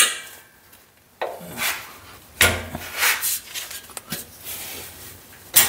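Scattered metal clunks and rattles from handling the base of a steel plasma-cutting water table: a sharp knock at the start, several smaller clatters about a second apart, and another sharp knock just before the end.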